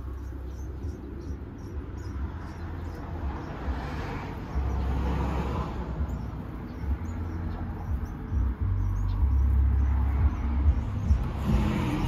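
Low rumble of street traffic, swelling as vehicles pass, with faint, rapid high peeps of nestling birds through the first half.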